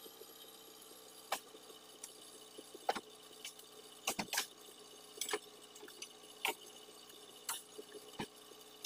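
Irregular sharp knocks and thuds, about a dozen spread through the stretch, as oil palm fruit bunches are pitched up into a wooden lorry bed, over a steady low hum.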